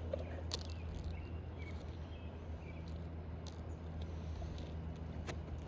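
Faint, scattered light ticks and scrapes of an asphalt shingle and tools being handled on a roof, over a steady low hum.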